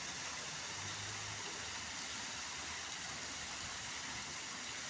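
Fountain water jetting up and cascading over the basin rims into the pool, a steady splashing hiss.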